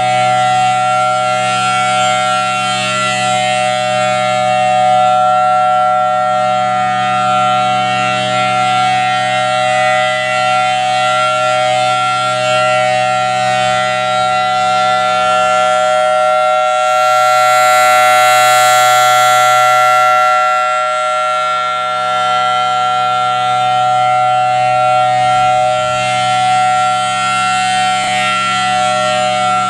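Federal Signal Thunderbolt 1000AT storm siren sounding a steady chord of tones at full pitch during its test. A little past the middle it swells louder and brighter for a few seconds as its rotating horn sweeps past, then settles back.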